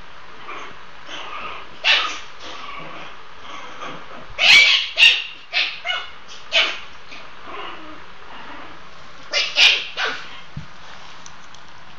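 Puppies play-fighting, giving short high yips and barks: one about two seconds in, a quick run of several around the middle, and another two or three near the end.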